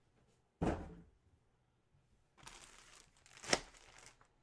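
A thump about half a second in, then plastic packaging crinkling as it is handled, with one sharp crackle near the end.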